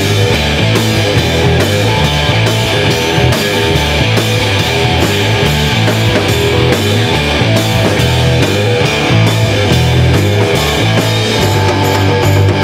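Live instrumental surf rock trio, with electric guitar, electric bass and drum kit, playing loud and driving over a steady drum beat and a repeating bass line.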